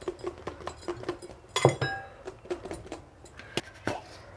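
Light rapid tapping and clicking as a small plastic spice container is shaken over a glass salad bowl to sprinkle chaat masala. About a second and a half in, a louder clink rings briefly off the glass bowl, and two sharp knocks come near the end.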